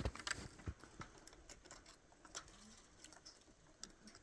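Faint, scattered light clicks and taps at an irregular pace, with no steady sound beneath them.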